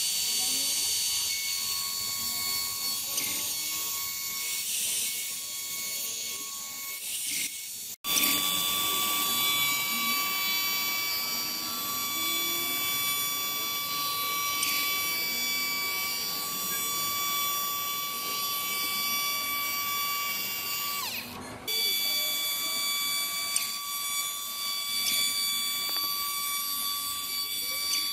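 Handheld electric power tool, drill-like, running with a steady high whine. The sound breaks off abruptly about 8 seconds in and again about 21 seconds in, then carries on.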